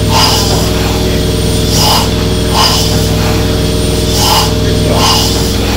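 1870s single-cylinder stationary steam engine running slowly: short chuffs of steam come in uneven pairs, a pair about every two and a half seconds, over a steady low hum.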